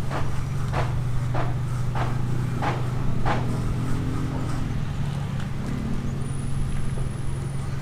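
A motor running with a steady low hum, and six evenly spaced sharp knocks, about one every 0.6 s, over the first three seconds.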